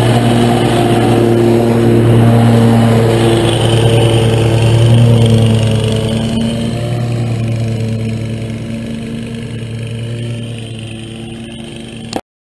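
Exmark zero-turn riding mower's engine running steadily, growing fainter over the last several seconds as the mower drives away, then cutting off abruptly near the end.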